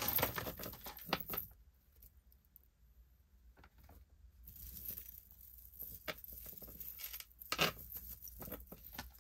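Metal chain necklaces clinking and jingling as they are handled and laid down, with soft rustling against the paper towel. It is loudest in the first second and a half, then comes as a few softer jingles later on.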